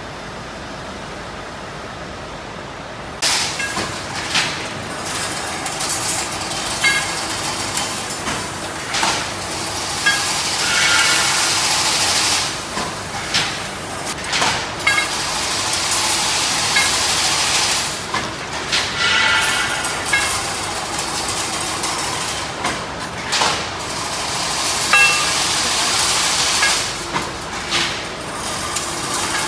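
Chain link fence making machine running, weaving wire into mesh: loud metallic clattering and rattling with irregular knocks and a few brief high-pitched squeals. It starts suddenly about three seconds in, after a low steady hum.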